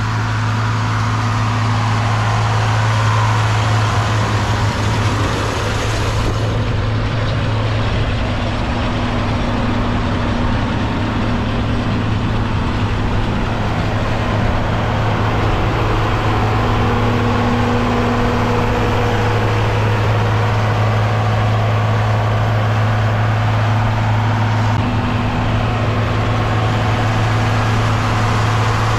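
John Deere 4230 tractor's six-cylinder diesel engine running steadily with a constant low hum.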